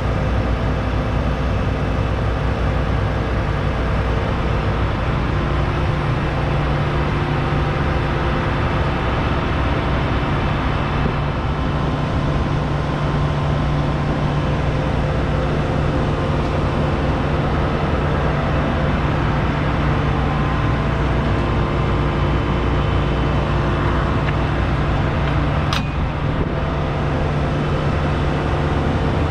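John Deere S790 combine harvester's 13.5-litre six-cylinder diesel running at a steady speed, an even hum with a steady low tone. A single sharp click sounds near the end.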